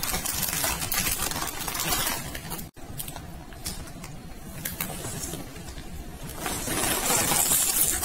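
Small decorative stones clicking and clinking as they drop into a plastic basket, with a brief dropout about a third of the way in. Near the end a clear plastic bag rustles and crinkles loudly as dried potpourri is tipped in.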